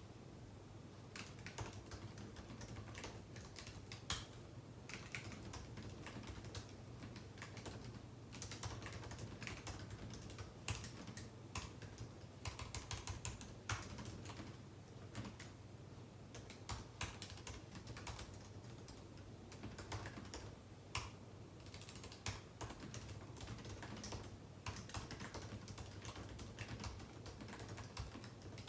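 Typing on a computer keyboard: irregular runs of key clicks with short pauses between bursts, over a steady low hum.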